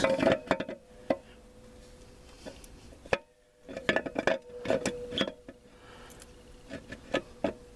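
Metal parts of a 4L60E automatic transmission clinking and knocking in short clusters as the low roller clutch housing is worked down into the case, over a faint steady hum.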